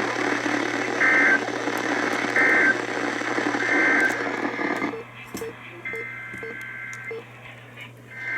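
Emergency Alert System SAME data bursts received over a hissy radio. First come three short, shrill digital bursts a little over a second apart, the length of an end-of-message code. About five seconds in the hiss drops and a longer header burst plays, and another begins right at the end.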